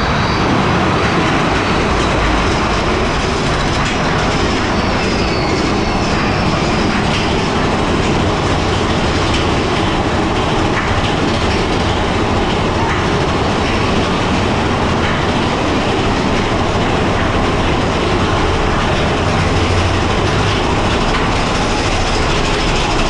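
Big Thunder Mountain Railroad mine-train roller coaster running on its track, heard from on board: a loud, steady rumble and clatter of the train.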